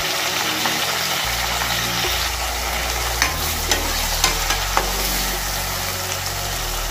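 Chopped tomatoes sizzling in hot oil in a metal kadai as they are stirred with a steel spatula, with a few sharp taps and scrapes of the spatula on the pan in the middle.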